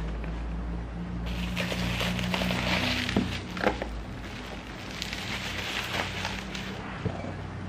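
Plastic bubble wrap crinkling and rustling as it is handled and lifted out of a cardboard box, with a couple of soft knocks about three seconds in. A steady low hum runs underneath.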